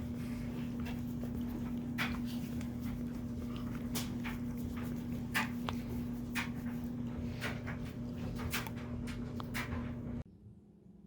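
A steady low hum with irregular sharp clicks and taps over it. Both cut off suddenly about ten seconds in.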